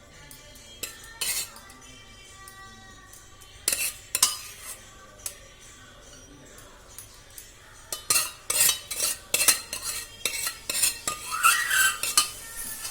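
A spoon knocking and scraping against a pot while stirring chopped onion, tomato and green chilli into boiled sprouts. The first half has a few separate knocks, and from about two-thirds of the way in comes a quick run of clinks, several a second.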